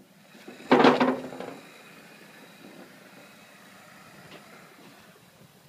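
Plastic wheels of a child's battery-powered ride-on toy jeep hitting and climbing aluminium chequer-plate loading ramps, with one loud metallic clatter about a second in. After that comes a faint steady rumble as the jeep rolls along the metal trailer deck.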